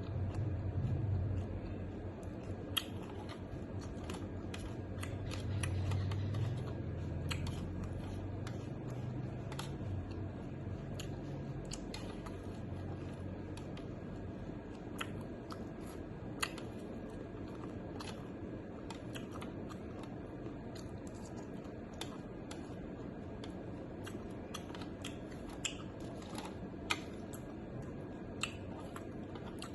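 Eating sounds: irregular light clicks and taps, like utensils on a bowl, with a low rumble during roughly the first twelve seconds.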